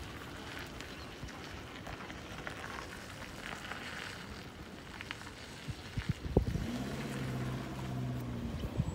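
Open-air ambience: an even hiss with faint ticks, then wind buffeting the microphone in low thumps from about six seconds in, with a low steady hum over the last two seconds or so.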